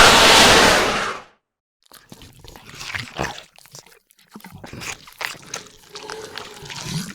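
Designed dinosaur sound effects: a loud, harsh burst about a second long, then after a short pause a run of quieter clicks, crunches and rustles, with a faint held tone near the end.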